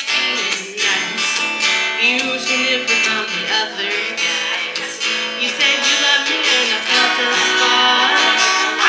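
Acoustic guitars strummed with a woman singing over them.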